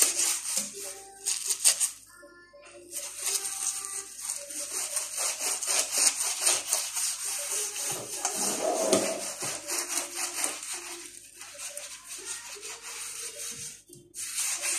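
Fast back-and-forth scrubbing of a scouring pad on floor tiles, a dense rasping rhythm that stops briefly about two seconds in and again near the end. Music with a melody plays underneath.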